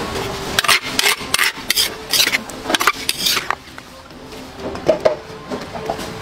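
Metal spoon scraping against the inside of a mortar as salad is scooped out, a run of about half a dozen short rasping scrapes, followed by a few light clinks near the end.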